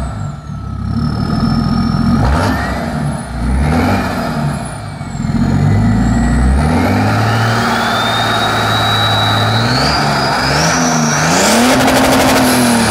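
BMW 535d E60's twin-turbo straight-six diesel, on a full-tube exhaust, revved several times and then held high. The turbo whistle rises steadily in pitch over the engine note, like an airplane taking off, before the revs drop near the end.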